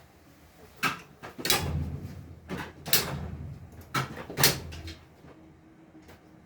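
Handling noise from robot parts being taken apart: about seven sharp clicks and knocks of hard plastic and small parts over a low rumble of movement, settling down after about five seconds.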